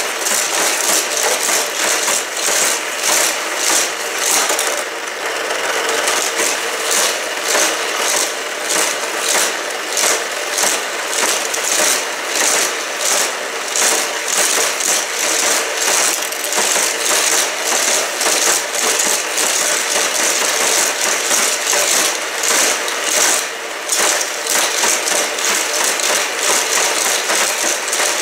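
Motorized Hot Wheels Criss Cross Crash track set running: the battery-powered booster with its rubber power wheel hums steadily while die-cast cars clatter around the plastic track loops in a fast, continuous run of rattling clicks.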